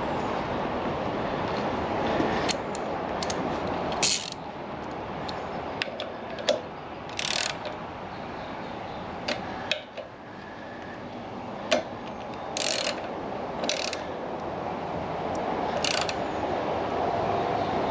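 Ratchet wrench clicking in several short bursts, with scattered sharp clicks of hand tools on metal, over a steady background hiss.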